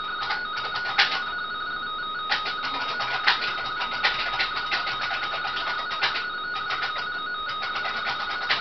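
RTTY radioteletype signal, a frequency-shift-keyed data tone warbling between two close steady pitches a little above 1 kHz, with a higher tone and many short clicks over it.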